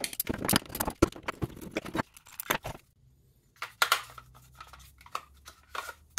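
Hands handling parts on a workbench: a run of quick clicks and knocks from the plastic-cased high-voltage contactors being picked up and fitted together. There is a short lull about three seconds in, then more clicks.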